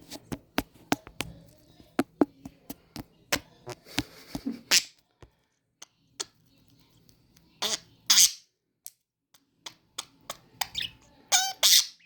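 Pet budgie chattering: a string of sharp beak clicks with three short harsh chirps, about four, eight and eleven seconds in.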